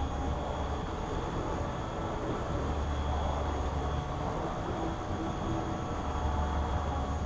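Steady low machine rumble with a faint, even high whine over it.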